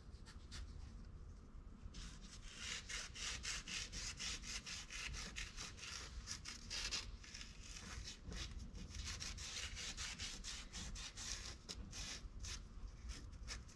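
Microfiber cloth rubbed back and forth over a textured wrinkle-black powder-coated engine part, wiping on ceramic coating: faint, quick repeated scrubbing strokes that start about two seconds in.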